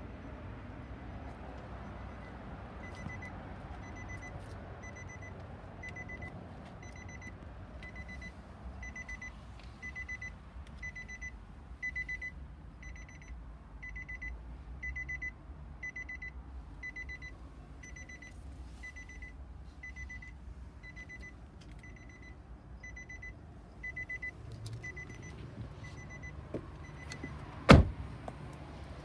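A Nissan car's electronic warning chime beeping steadily at a high pitch, about three beeps every two seconds. Near the end the beeping stops and a car door shuts with one loud thud.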